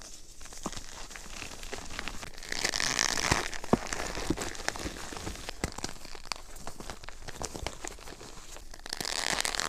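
Hands squeezing and crumbling reformed gym chalk, a run of crackly crunches and gritty rustling. Two longer, denser crumbling passes come about a third of the way in and again near the end.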